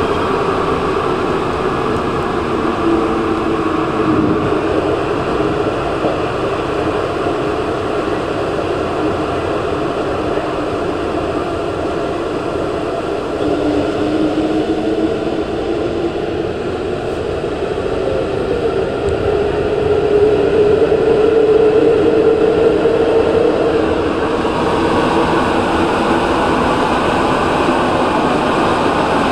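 Rubber-tyred Santiago Metro NS-2004 train running through a tunnel, heard from the driver's cab: a steady running noise with whining tones that shift in pitch and swell loudest about twenty seconds in.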